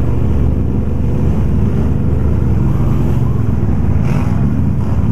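Can-Am ATV engine running steadily as the quad rides along, a dense, even rumble.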